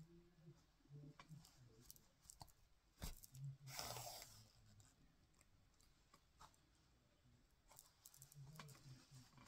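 Faint hand-sewing sounds: needle and thread drawn through layered cloth, with a sharp click about three seconds in and a brief swish just after as the thread is pulled through, and light rustles and taps of the fabric.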